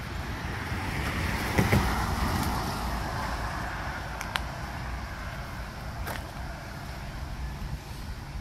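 A car passing on the road, its tyre and engine noise swelling to a peak about two seconds in, then fading away over the next few seconds.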